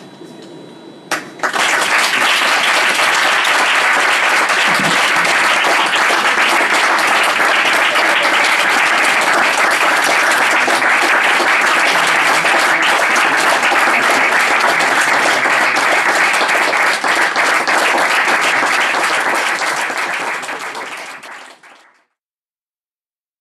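Audience applauding, starting suddenly about a second in, holding steady, then fading out near the end.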